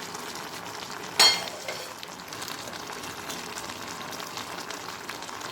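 A metal pot lid clanks once about a second in as it comes off, then pieces of raw jackfruit keep simmering in water in the pot with a steady bubbling hiss.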